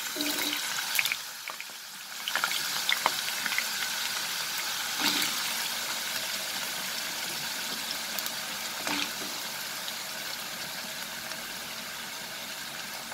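Potato cubes frying in hot oil in a nonstick pan: a steady sizzle, with a few clicks as more cubes go in.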